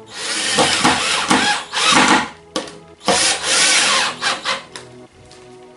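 Cordless drill-driver driving screws through a metal L-bracket into a wooden board, running in two spells of about two seconds each with a short pause between them.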